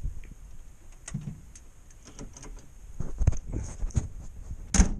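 Scattered clicks and knocks of an ignition key being handled and a person moving about in a car, with one sharp knock near the end; the engine is not running.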